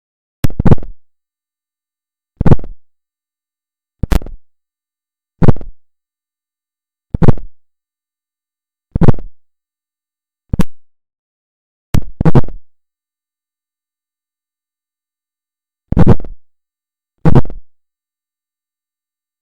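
About ten short bursts of buzzing 'za-za' noise, taken from the strange Morse-code-like signal that sounded from a refrigerator. Each burst starts with a click and lasts under half a second. The bursts are separated by complete silence at irregular one- to two-second gaps, with a longer pause about two-thirds of the way through.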